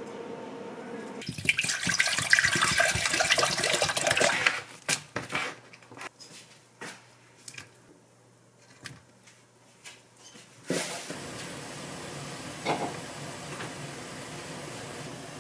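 Water running into a saucepan for a few seconds, then light taps and knocks as ingredients go in. From about eleven seconds in, the pot of broth bubbling steadily on the boil.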